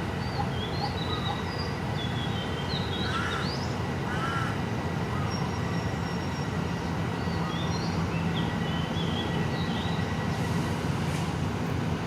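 Steady low rumble of a diesel locomotive idling at the station platform, with birds calling over it, two louder calls about three and four seconds in.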